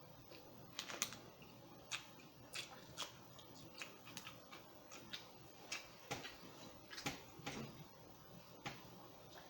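Faint, irregular fingertip and nail taps on a phone's touchscreen, about one click a second with a few quick pairs.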